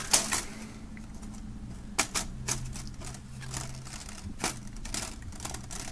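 Irregular hard-plastic clicks and knocks as the hinged stand of a smartphone screen magnifier is worked into place by hand; the part is stiff and does not go in easily.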